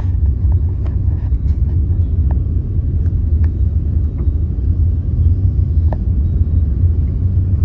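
Steady low rumble of a vehicle riding through town streets, heard from on board, with a few faint clicks and rattles.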